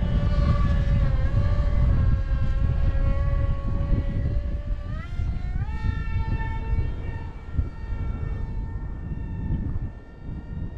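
Electric motor of a 3D-printed RC F-35C jet model whining steadily. Its pitch rises about five seconds in as the throttle is advanced, then holds at the higher pitch. Wind rumbles on the microphone underneath.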